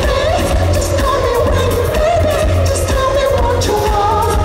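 Pop song played loud through a concert PA: a male voice singing a gliding melody over a heavy, steady bass beat.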